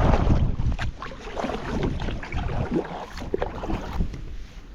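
Wind rumbling on the microphone out on a kayak, with scattered small knocks and water sounds against the hull.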